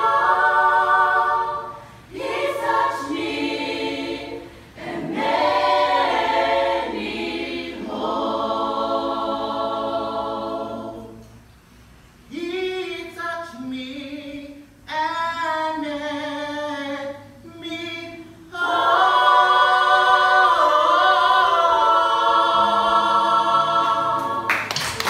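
Mixed choir of men's and women's voices singing a cappella in phrases broken by short pauses, swelling into a long, loud last phrase in the final few seconds.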